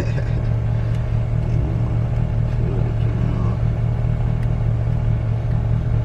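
Fifth-generation Chevrolet Camaro idling, a steady low hum heard from inside the cabin.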